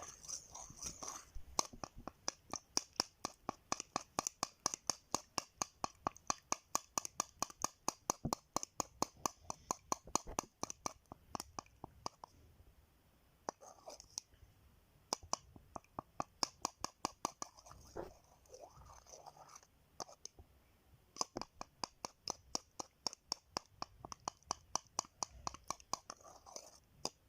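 A spoon stirring ginger juice and honey together in a small container, with rapid clicks of the spoon against its sides, several a second. The stirring pauses briefly twice before going on again.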